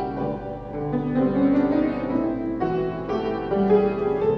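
Solo piano playing a slow classical accompaniment for a ballet barre exercise, with melody over chords.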